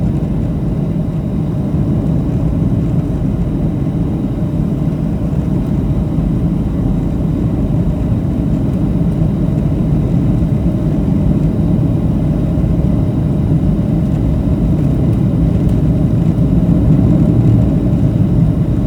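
Steady low cabin rumble of a Boeing 737-700 in flight, the jet engines and airflow heard from inside the cabin, growing a little louder near the end. This is the final approach just before touchdown.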